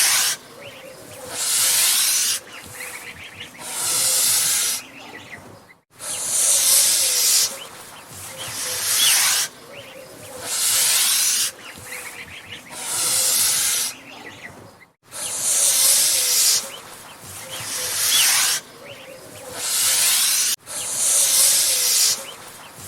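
Angry goose hissing: about ten loud, breathy hisses in a row, each lasting about a second, one roughly every two seconds.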